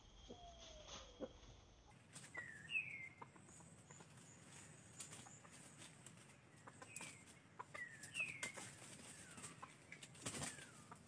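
Chickens moving over dry leaf litter: scattered faint crackles and rustles, with short high chirps that slide downward, in ones and twos, and a lower falling call in the first second or so.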